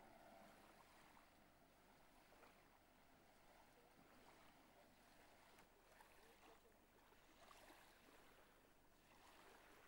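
Near silence: a faint, even hiss.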